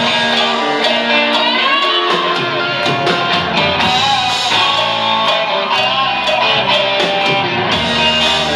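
Live rock band playing: electric guitars over a steady drum beat, with the bass coming in about three and a half seconds in.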